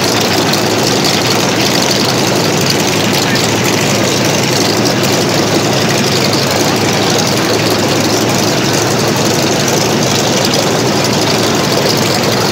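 Jacobs radial aircraft engine in a 1939 Plymouth pickup running steadily and loudly, holding an even note with no revving.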